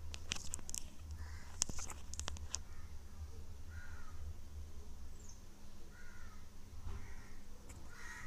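Thin plastic water bottle crackling and clicking as a knife cuts around it, with a cluster of sharp clicks in the first couple of seconds. A bird calls faintly several times in the background over a steady low hum.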